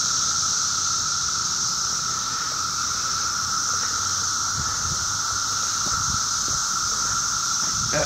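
Dense chorus of male periodical cicadas (17-year brood) calling: a continuous, high-pitched squeal, their mating call, with a second, lower steady tone beneath it.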